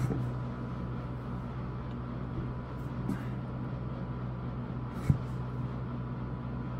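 Steady low electrical or mechanical hum with no speech, and a single soft knock about five seconds in.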